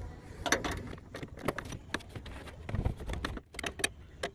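Irregular metallic clicks and clinks of a socket wrench tightening the engine mount bolts.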